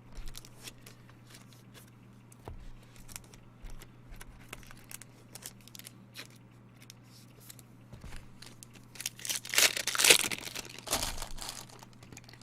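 A foil trading-card pack wrapper being torn open and crinkled, loudest about nine to eleven seconds in. Before it come soft clicks and rustles of cards being handled.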